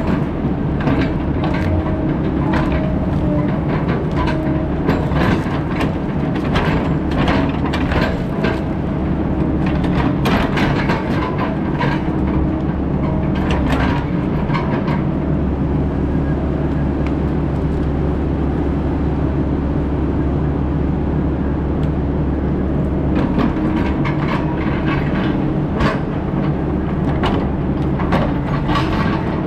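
Heavy diesel logging machine running steadily, with many sharp cracks and clanks over the engine through roughly the first half and again near the end.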